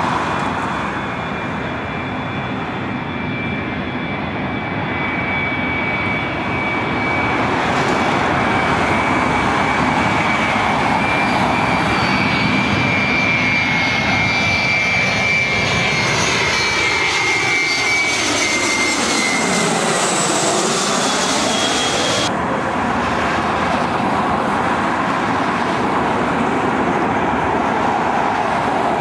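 Jet airliner (Boeing 737) on landing approach: a steady high engine whine over a rushing noise, its pitch sweeping down as it passes overhead about two-thirds of the way in. The sound then cuts abruptly to the steady noise of another approaching jet airliner.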